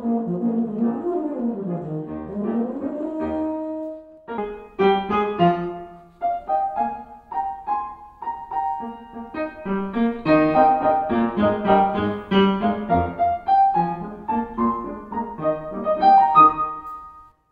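Euphonium solo with piano accompaniment. The euphonium holds and slides between sustained notes for about the first four seconds, then the piano carries on alone with runs of quick notes.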